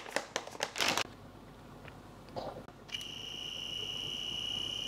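A few light clicks and rustles as powder is scooped into a glass, then about three seconds in a handheld electric frother starts up, a steady high-pitched whine as it mixes the powder into the water.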